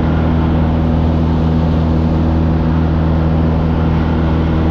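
A light high-wing plane's engine and propeller droning steadily in flight, with wind rushing past.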